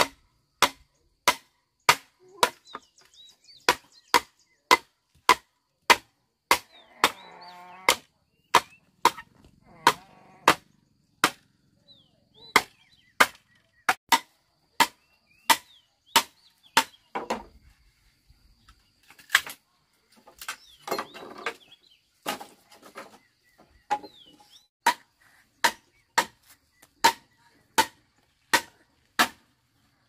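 Steady chopping: a blade striking bamboo about three times every two seconds, with birds chirping in the background.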